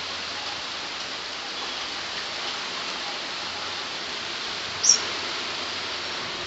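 Steady rain falling, an even hiss of drops. About five seconds in there is a single short high-pitched chirp, the loudest moment.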